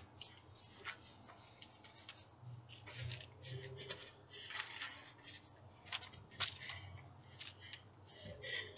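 Irregular light clicks and short swishes of an LED hula hoop being spun around the body and handled, a few per second.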